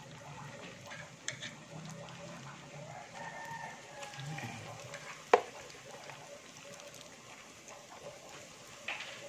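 Breaded Spam slices sizzling in shallow frying oil, a light, even crackle with small scattered pops. A single sharp click about five seconds in stands out above the frying.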